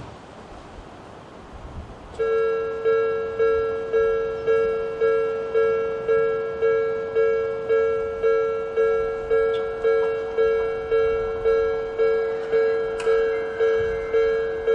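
Electronic level-crossing warning bell of the Odakyu type starting up about two seconds in. It repeats a ringing, decaying chime about twice a second, signalling an approaching train.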